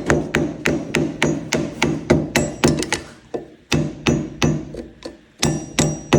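Hammer tapping metal, about three quick strikes a second, each with a short ringing note, to bend a steel locking tab flat against an ATV brake rotor bolt. The tapping stops briefly about halfway through and again near the end, then resumes.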